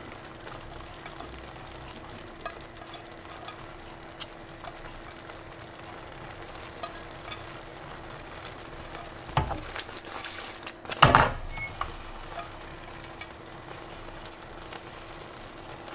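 Curry sauce with chicken meatballs in it simmering and sizzling in a pan, a steady gentle hiss. Two knocks of the pan or a utensil about nine and eleven seconds in, the second louder, over a faint steady hum.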